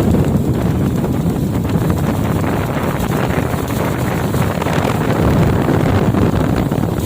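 Steady, loud wind buffeting the microphone aboard a speedboat under way, with the rush of the boat's running noise underneath.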